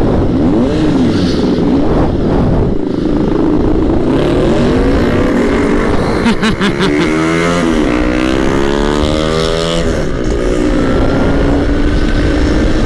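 Sport motorcycle engines running on a group ride, the revs rising and falling as the bikes accelerate and shift, with the busiest stretch of revving in the middle.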